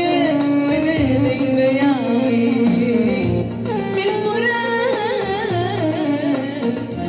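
A woman singing an Arabic song into a microphone, amplified through speakers, with wavering, ornamented melodic lines over a steady instrumental accompaniment.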